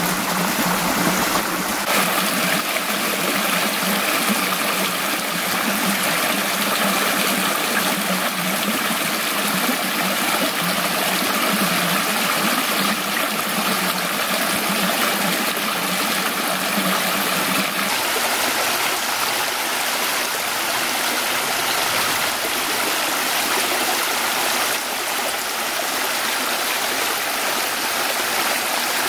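Shallow woodland creek running over rock ledges and a small cascade: a steady rush and trickle of water, changing slightly in tone a few times.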